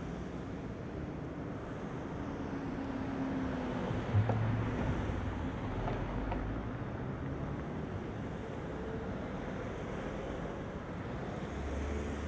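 Steady roadside noise: wind on the microphone with the low rumble of cars approaching along the road.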